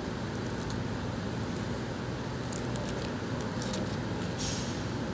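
Restaurant room noise: a steady low hum with scattered light clicks and clatter.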